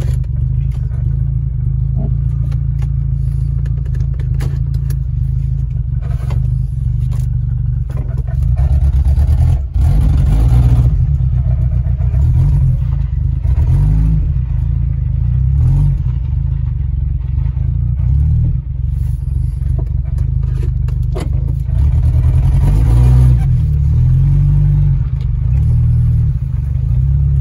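Low rumble of a Suzuki car heard from inside its cabin as it is driven slowly, swelling twice, with light rattles and ticks.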